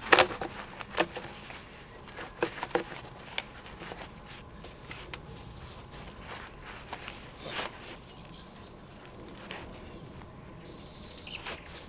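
Plastic drainage pipes and a Y fitting knocking and scraping as they are handled and pushed together. A series of short sharp clicks and knocks, the loudest about the start, with more scattered through the rest.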